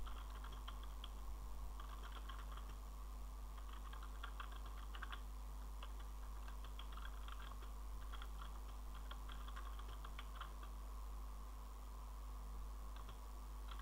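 Computer keyboard typing in quick runs of keystrokes broken by short pauses, over a faint steady low hum.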